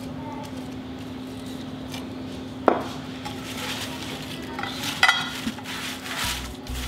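A glass bowl scraped out, a sharp knock about two and a half seconds in, then hands tossing and rubbing oiled lavash pieces in a glass baking dish, the bread rustling with clinks against the glass. A steady low hum underneath, and music comes in near the end.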